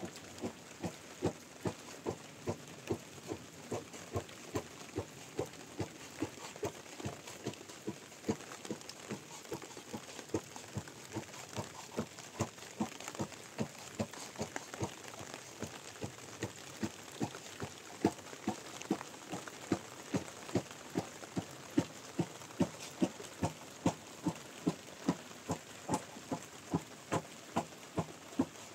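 Regular knocks, about two a second, over a steady hiss of rain.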